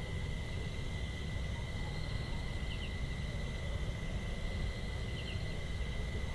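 Outdoor nature ambience: a steady insect drone at one high pitch, with a short double bird chirp about every two and a half seconds, over a low rumbling noise.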